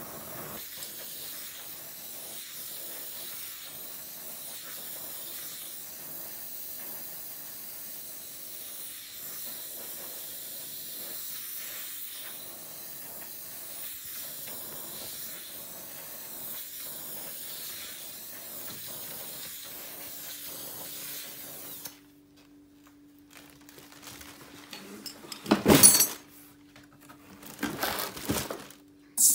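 Twin-hose gas torch flame hissing steadily as it heats gold in a small steel crucible, then cutting off suddenly about two-thirds of the way through. Near the end come a few loud metallic knocks and scrapes as a hand tool works the hot metal in the crucible.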